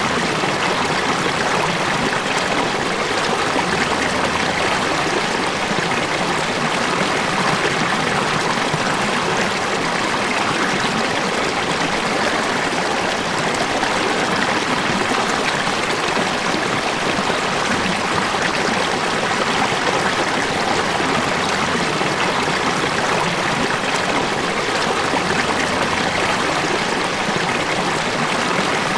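River water running steadily, an even, continuous rushing with no breaks.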